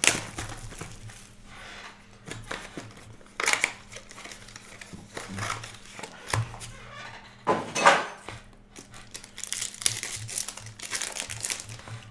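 Plastic wrap and card-pack wrappers crinkling and tearing as a trading-card hobby box is opened and its packs handled, in irregular rustles with loud ones about 3.5 and 8 seconds in.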